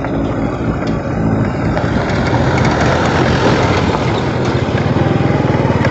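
A vehicle's engine running, with a steady pulsing rumble that grows louder and more even toward the end.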